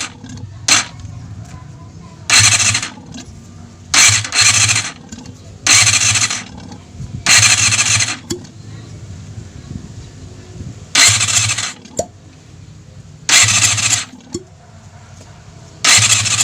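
Yamaha Zeal 250 inline-four cranked on its electric starter in about eight short bursts of roughly a second each. With the carburettors removed, each burst brings a loud hiss of air at the open intake ports: a check of whether each cylinder is drawing air.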